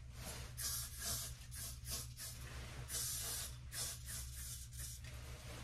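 Aerosol hair spray can spraying onto hair in a series of short hissing bursts with brief pauses between them.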